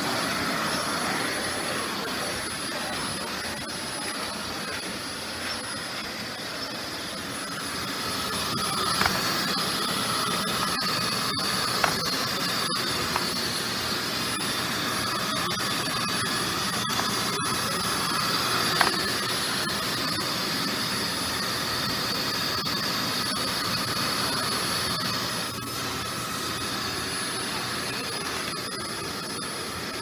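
Iris Ohyama IC-C102 cyclone canister vacuum cleaner running steadily, its nozzle being pushed across a hard floor: a continuous rushing of suction with a thin high whine, and a few sharp clicks now and then around the middle.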